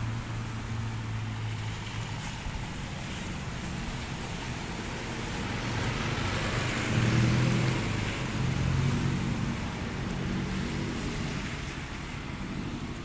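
Outdoor ambience with a motor engine humming, swelling to its loudest about halfway through and then easing off, over a steady hiss.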